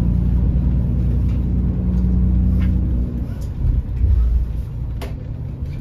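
Low, steady rumble of a road vehicle on the move, engine hum and road noise together. It starts and stops abruptly.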